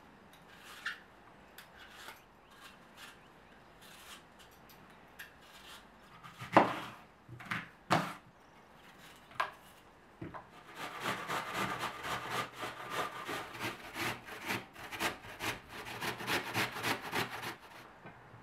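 Apples being worked by hand on a wooden board: scattered light knife clicks and a couple of sharp knocks, then for the last seven seconds or so a steady rhythmic scraping, about three strokes a second, of apple being grated on a metal box grater.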